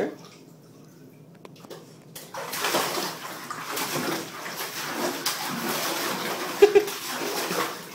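Bathtub water splashing and sloshing as puppies paddle and move about in it. It starts after a couple of quiet seconds and goes on unbroken, with a short pitched sound about two-thirds through.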